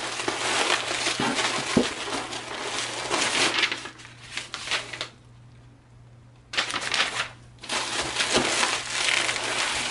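Sheets of white packing paper being crumpled and pulled out of a shipping box, in long rustling stretches with a pause of about a second and a half in the middle.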